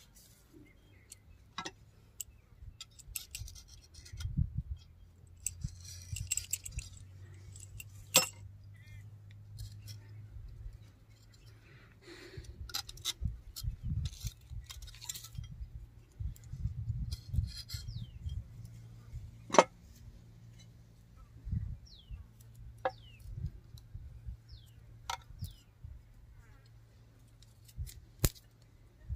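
Metal parts of a thresher's bearing assembly being handled by hand: scattered sharp clicks, clinks and knocks of a ball bearing and its square flange housing, with a few short scraping sounds. A faint steady low hum runs underneath.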